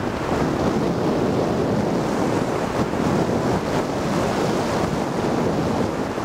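Steady wind noise from air rushing over the microphone of a camcorder taped to a hang glider's control bar in flight.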